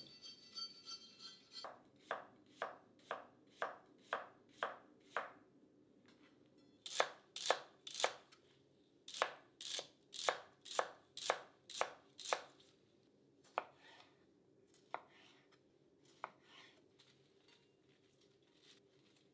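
Kitchen knife slicing cucumber and celery on a cutting board: crisp chops about two a second, a short pause, then a faster run of a dozen or so. A few single cuts follow, spaced out.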